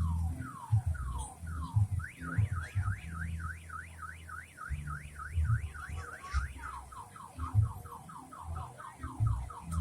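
Car alarm siren cycling through its tones: falling sweeps about twice a second, then a fast up-and-down warble, then quicker falling chirps near the end. Low thuds sound underneath.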